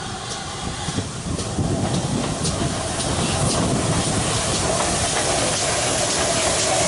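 GWR Saint class two-cylinder 4-6-0 steam locomotive No. 2999 'Lady of Legend' approaching with a train, its sound getting steadily louder as it nears.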